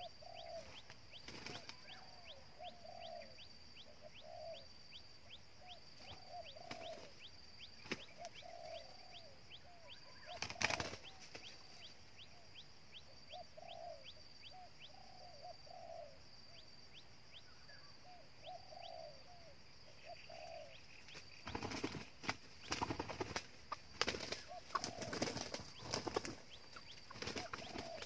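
Red junglefowl giving soft, short, low calls, repeated in clusters. There is a loud burst of wing flapping about ten seconds in, and dense bursts of flapping through the last seven seconds, which are the loudest sounds.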